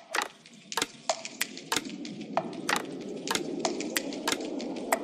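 A quick, irregular run of sharp clicks, two or three a second, with a low steady hum building up under them from about two seconds in.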